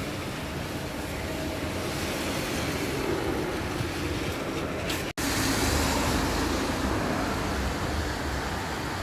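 Heavy rain falling, a steady rushing noise, cut off for a split second about five seconds in, then continuing slightly louder.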